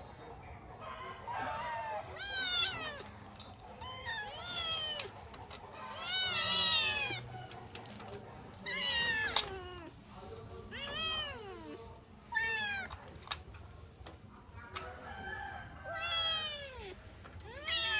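Kittens meowing, repeated high-pitched calls that each rise and then fall in pitch, about a dozen of them with some overlapping. These are young kittens crying for their mother.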